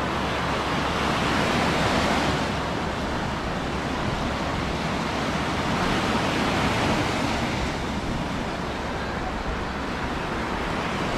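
Baltic Sea surf washing onto the beach: a steady rushing that swells and eases every few seconds, with wind rumbling on the microphone underneath.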